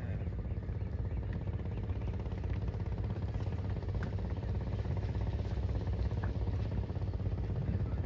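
A steady low rumble under a faint even hiss, with a few faint ticks and no clear engine note.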